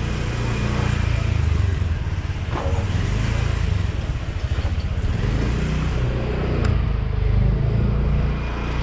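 Motorbike engine running at low, steady speed, with a heavy wind rumble on the microphone.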